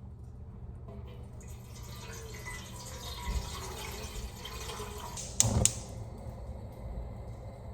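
Water running from a tap for a few seconds, then stopping, with two sharp knocks just after.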